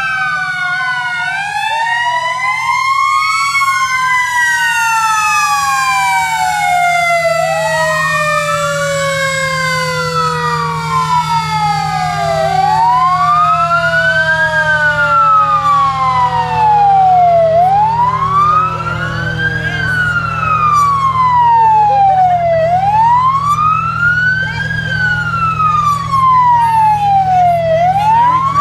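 Fire engine's wail siren rising and falling about once every five seconds. A second siren tone slides slowly downward through the first twenty seconds. The truck's engine runs underneath.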